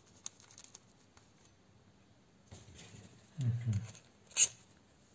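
Quiet handling of clear plastic bags filled with moist potting soil: faint ticks, a soft rustle, and a sharp click about four seconds in. Just before the click there is a brief low murmur.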